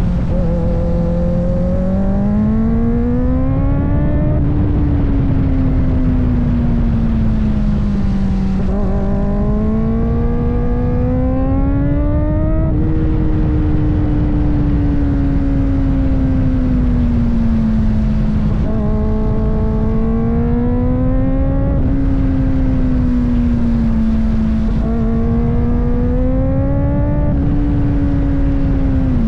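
Kawasaki ZX-4RR's inline-four engine running under way, its pitch climbing and falling several times as the throttle is rolled on and off. A steady rush of wind noise lies underneath.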